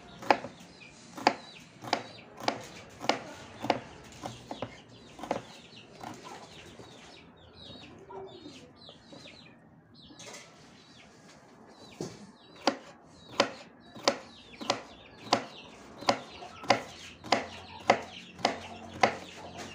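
Kitchen knife chopping bitter melon on a wooden cutting board: sharp chops about two a second, breaking off for several seconds after the first few, then resuming steadily about twelve seconds in.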